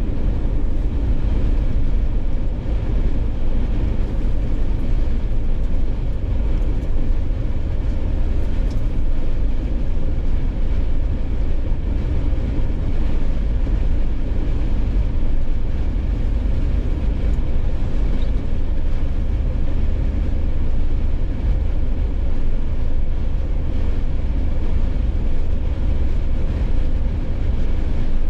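Steady low rumble of a Jeep driving along a highway: road and wind noise with the engine underneath, unchanging throughout.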